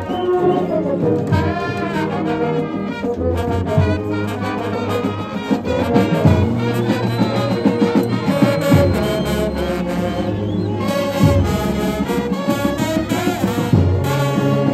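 Brass band playing a lively tune, with sousaphones carrying a low bass line under the melody.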